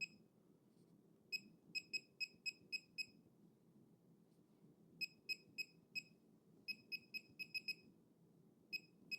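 MOJO laser projection keyboard beeping once for each key pressed as a word is typed: short, identical high electronic beeps in quick runs of four to seven, with pauses between runs.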